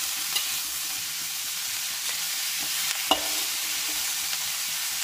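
Beef and vegetables sizzling in a hot wok while a spatula stirs them, with short knocks of the spatula against the wok, the loudest about three seconds in.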